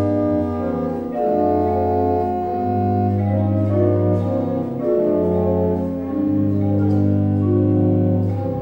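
Organ music: slow, sustained chords over a low bass line that changes note every second or two.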